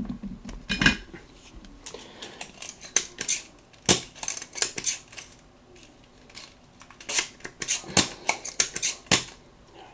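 Spring-loaded desoldering pump (solder sucker) and small hand tools handled on a soldering bench: an irregular string of sharp plastic and metal clicks and taps, with four louder snaps about 1, 4, 8 and 9 seconds in.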